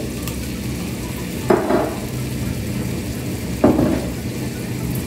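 Melted butter and a little cooking oil sizzling steadily in a frying pan, with two short, louder sounds about two seconds apart.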